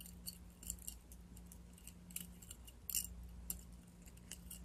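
Faint, scattered clinks and ticks of a metal ball chain and dog tags being handled.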